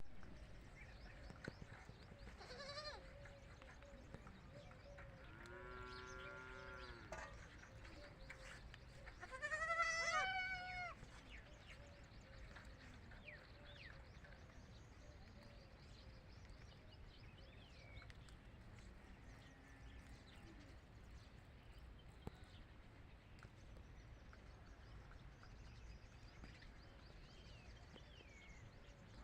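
Baby goats (kids) bleating: three wavering calls in the first eleven seconds, the loudest about ten seconds in, then only faint background.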